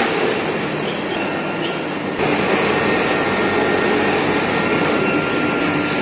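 Heavy machinery of a grinding-ball oil-quenching line running steadily, a dense clattering industrial din. It grows a little louder about two seconds in, with a faint high steady whine.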